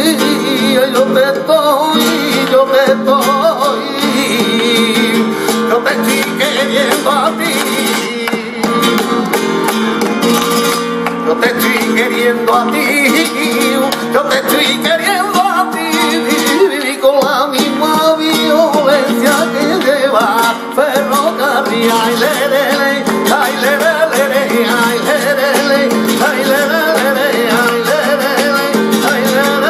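Flamenco tangos: a male cantaor singing with wavering, ornamented phrases over a flamenco guitar, with rhythmic palmas handclaps keeping the beat.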